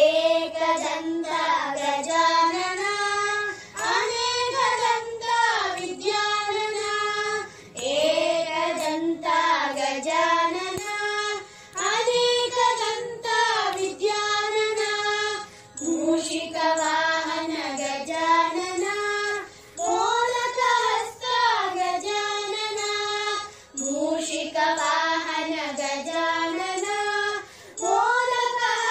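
Children's voices singing a devotional prayer song to Ganesha together, in sung phrases of about four seconds with short breaks between them.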